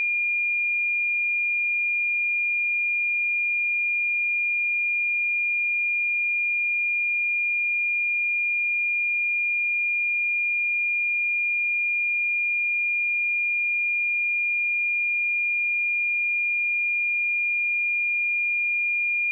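A pure 2414 Hz sine-wave test tone, one steady high-pitched note held at constant level.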